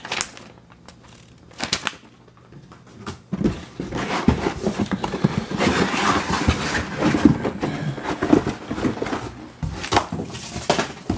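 Cardboard box and packing material being handled and rustled during unpacking. There are a few separate knocks at first, then a dense run of crinkling, clicks and knocks from about three seconds in until near the end.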